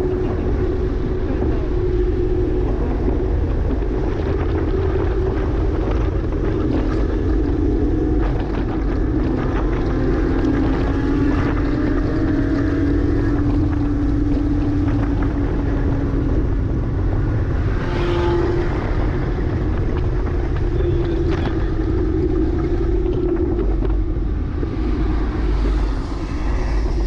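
2009 Porsche Cayman S flat-six engine running at steady, moderate revs, with tyre and wind noise; the engine note sags slowly in pitch through the middle and picks up again, with no hard revving.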